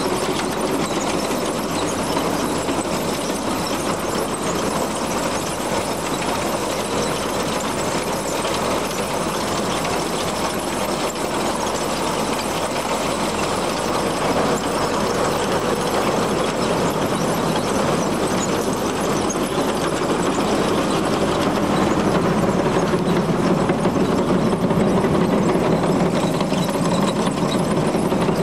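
Case IH 1063 cornhead running empty, its gathering chains and snapping rolls clattering steadily over the running combine engine that drives it. It grows a little louder in the last few seconds.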